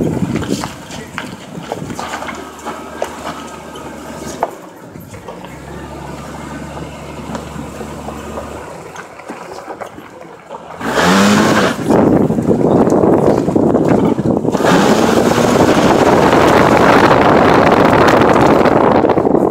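A 1999 Jeep Cherokee's engine running at low revs while crawling along a dirt trail. About eleven seconds in it revs up as the Jeep accelerates, and again a few seconds later. From then on a loud rushing noise of wind and tyres fills the sound.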